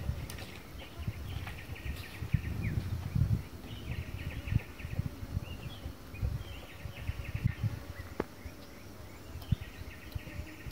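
Outdoor rural ambience: an animal chirps in quick trills, bout after bout of about a second each, over a low rumble with a few soft knocks.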